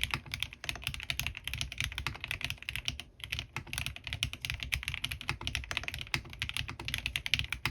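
Fast typing on a custom mechanical keyboard, a Bahm Studio Droplet with lubed Gateron CJ linear switches and PBT keycaps: a dense, quick run of keystroke clacks with a brief pause about three seconds in.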